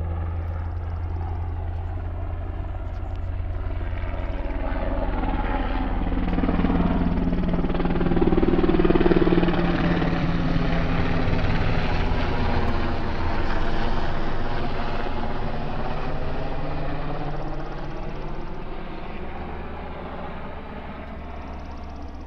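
Helicopter flying overhead: a steady low rotor and engine sound that grows louder to a peak about nine seconds in, its tone sweeping as it passes, then fades as it moves away.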